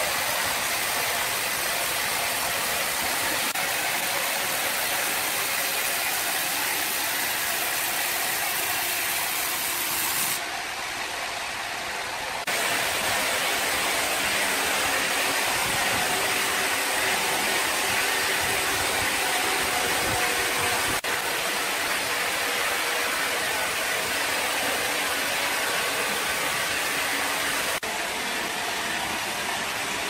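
Horizontal band sawmill running and cutting through a large timber beam, making a steady, loud hissing noise. The noise drops for a couple of seconds about a third of the way in.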